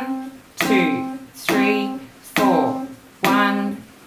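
Upright piano playing middle C over and over in steady crotchets, about one note a second, each note struck and left to ring and fade before the next.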